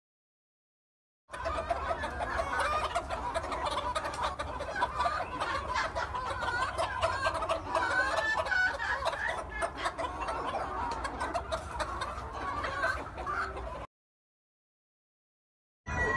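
A flock of buff-coloured hens clucking together, many short overlapping calls. It starts about a second in and stops suddenly about two seconds before the end.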